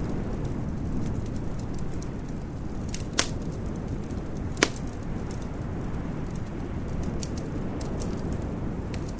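Wood fire crackling in a fireplace: scattered small snaps over a steady low rumble, with two louder pops about three and four and a half seconds in.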